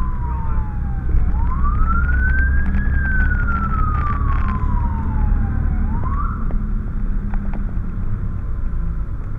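Fire truck siren heard from inside the moving truck's cab. It falls slowly in pitch, swoops back up about a second in and falls again, then gives a short rise about six seconds in and stops. Underneath is the steady low rumble of the truck's engine and road noise.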